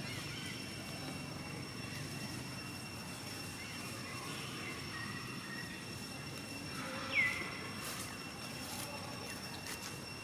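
Outdoor ambience with a steady high whine, and a single short, falling high squeak about seven seconds in.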